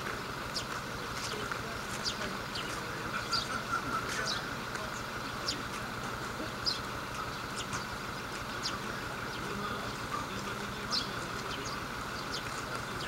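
Outdoor background ambience: a steady hum with many short, high chirps scattered irregularly through it.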